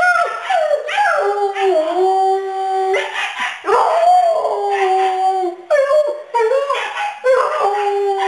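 A dog howling: several long howls, each starting high, sliding down in pitch and then held, with a few short yelping calls about two-thirds of the way through.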